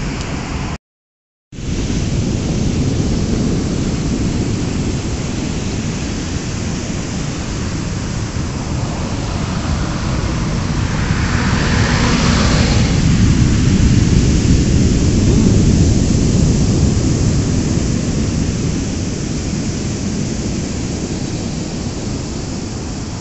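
Heavy surf from high typhoon waves with strong wind rumbling on the microphone. A wave breaks louder about halfway through, and the sound cuts out completely for under a second near the start.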